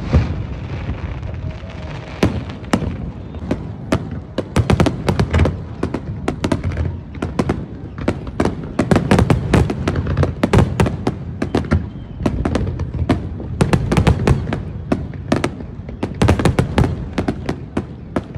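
Aerial fireworks display: booming shell bursts and crackling, sparser at first and then a dense rapid barrage of bangs from a few seconds in.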